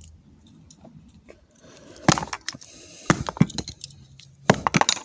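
A pencil striking a remote control over and over, a quick run of sharp taps and cracks starting about two seconds in.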